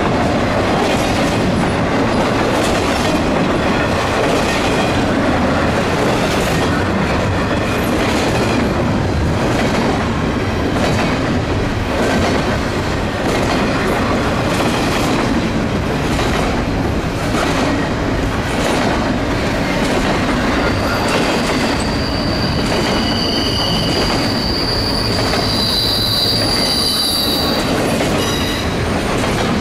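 Cars of a double-stack intermodal freight train rolling past on a curve, a steady rumble of wheels on rail with recurring clacks. About two-thirds of the way through, high wheel squeal sets in as the wheels grind around the curve.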